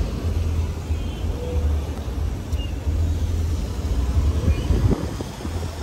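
Low, uneven rumble of wind buffeting the microphone, heard on open water.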